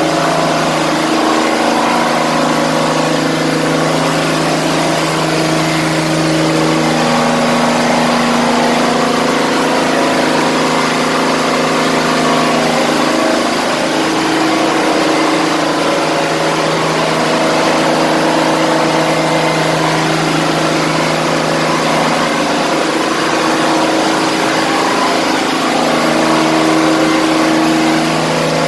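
A tug boat's diesel engines running loudly, heard inside the engine room: a dense, steady drone with several steady humming tones.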